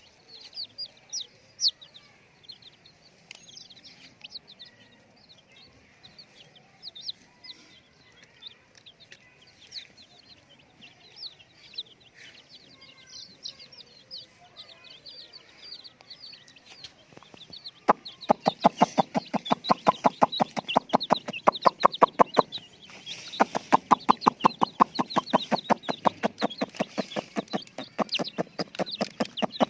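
Chicks peeping, a stream of high, short chirps. About two-thirds of the way through, a much louder, fast and evenly pulsed sound starts, runs in two stretches with a short break, and drowns out the chicks.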